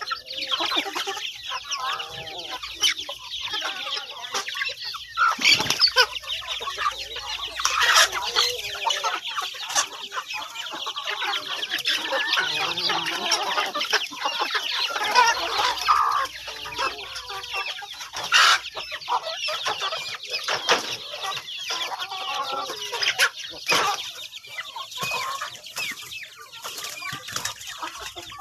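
A flock of free-range chickens clucking and calling over one another in a dense, continuous, high-pitched chatter.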